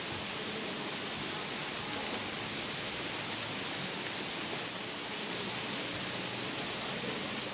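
A steady, even hiss of outdoor background noise, strongest in the upper range.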